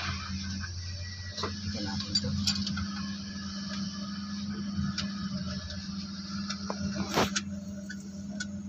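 Scattered metallic clicks and light clanks of a wrench working the alternator's mounting and adjusting bolts on a truck engine, over a steady low hum, with one louder knock about seven seconds in. The alternator is being snugged down to set drive-belt tension.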